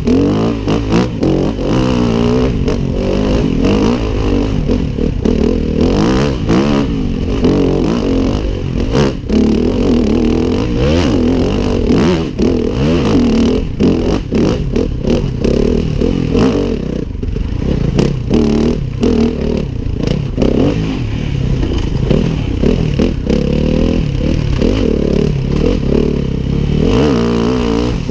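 Yamaha WR250F's single-cylinder four-stroke engine revving up and down again and again as the bike is ridden hard along a rough dirt trail, heard close up from the rider's helmet. Frequent knocks and clatter from the bike over the bumps run through it.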